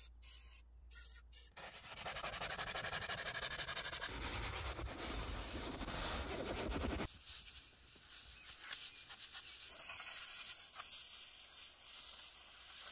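A stiff hand brush scrubbing shampoo into a car's cloth seat upholstery with quick back-and-forth strokes, starting about a second and a half in. Halfway through, the scrubbing turns quieter and softer.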